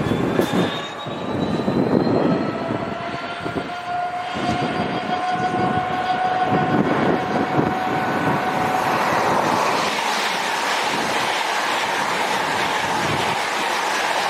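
LNER Azuma high-speed train approaching and passing at speed: a whine of several tones rising slowly in pitch, building over the last few seconds into a broad rush of wheels on rail and air.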